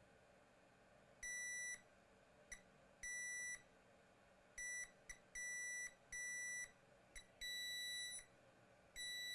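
Digital multimeter in diode mode beeping at the probe tip on a capacitor pad, about ten steady high beeps at uneven gaps, most about half a second long and a few only brief blips, as the probe makes and breaks contact. The beeping shows that the rail is still shorted.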